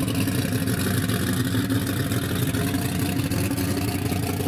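Drag race car engines running with a steady, rough low note, no clear revving up or down.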